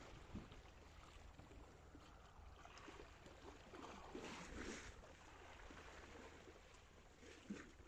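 Near silence: faint wash of sea water against the sea wall, swelling a little about halfway through.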